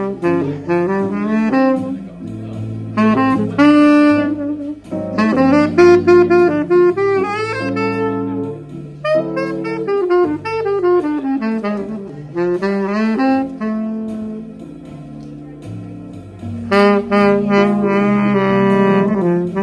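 Live jazz ballad, instrumental break: a lead instrument plays a melodic solo in phrases a few seconds long, with bends and quick runs, over a lower accompaniment.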